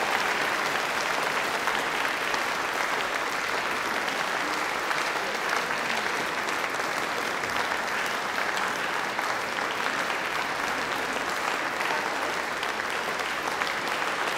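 An audience applauding steadily: dense, even clapping.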